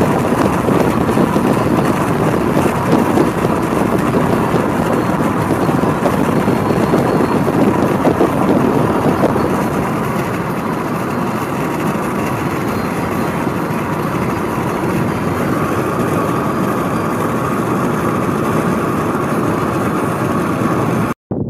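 Steady road and wind noise of a car driving, heard from inside the cabin: an even rush with a faint steady tone, cutting off abruptly near the end.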